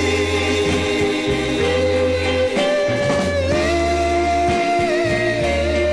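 Music: a slow soul ballad, with voices holding long sung notes that step upward over a bass line and band.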